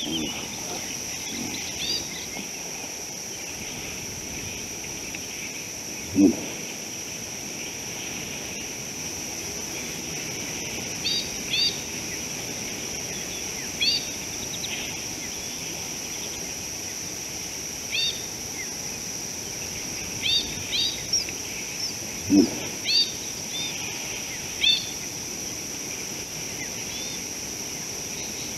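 Outdoor bush ambience: a steady high-pitched insect trill under repeated short bird chirps that come in small clusters. Two brief low sounds stand out, about six seconds in and again near twenty-two seconds.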